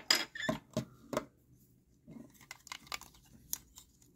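Plastic parts of a transforming toy robot clicking and knocking as they are handled and pulled off. There is a quick run of clicks in the first second, a short lull, then more scattered clicks.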